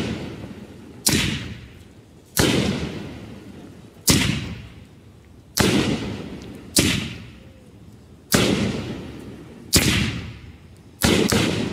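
'Honey Badger Don't Care' consumer aerial firework cake firing shell after shell: about nine sharp booms, roughly one every second and a half, each trailing off over about a second. The last two come close together near the end.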